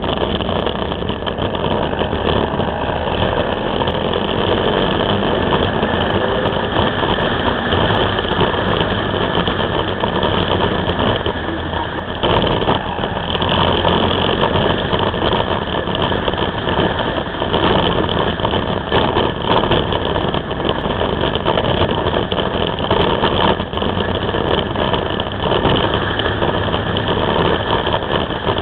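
Can-Am Spyder under way on an open road: its engine running steadily, mixed with heavy wind and road noise on the bike-mounted camera's microphone.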